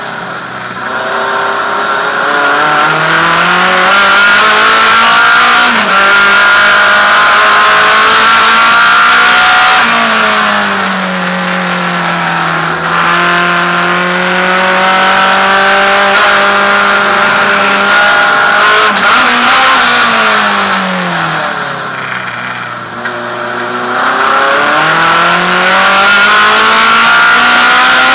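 Naturally aspirated Alfa Romeo race car engine heard from inside the cockpit, revving up hard through the gears with a quick gear change, then dropping in pitch as the driver lifts and slows for corners. This happens twice, and near the end it pulls hard again.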